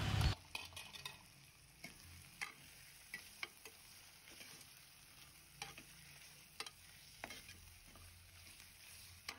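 A steel spatula stirring prawn and tomato masala in an aluminium pressure-cooker pot, with a louder clatter at the very start, then scattered light scrapes and taps of metal on the pot over faint sizzling.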